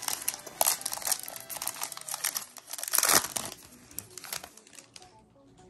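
Foil wrapper of a Pokémon Battle Styles booster pack being crinkled and torn open, with the loudest rip about three seconds in, dying down near the end.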